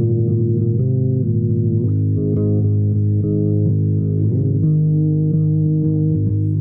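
Solo bass guitar improvising in held notes, with a slide up to a new sustained note about four seconds in.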